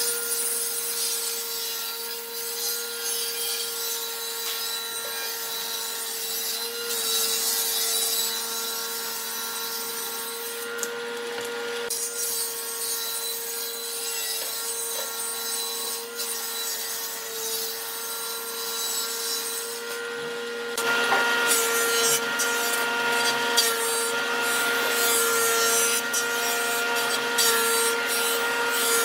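Jointer on a combination woodworking machine running with a steady hum while a wooden slab is pushed across its cutterhead. The cutting noise grows louder and harsher about two-thirds of the way in.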